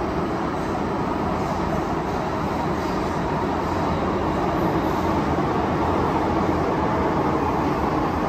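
MTR M-Train electric multiple unit running at speed between stations: a steady rumble of wheels on rail and running gear, growing slightly louder about halfway through.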